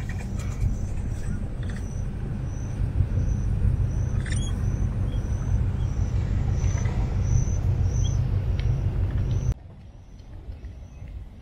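Outdoor ambience: a heavy, steady low rumble under a high, even chirp that repeats about three times every two seconds. Near the end the rumble cuts off suddenly, leaving the chirping faint.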